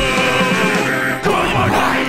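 Rock music at the close of a song: a held note breaks off a little over a second in, followed by a short final chord.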